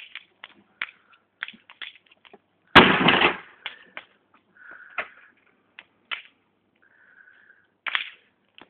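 Junk thrown down from a balcony crashing onto the ground once, loudly, about three seconds in, among scattered lighter knocks and clatters.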